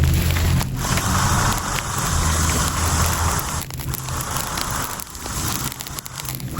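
Machine engine running steadily under a crackling, rustling noise with scattered sharp clicks and snaps.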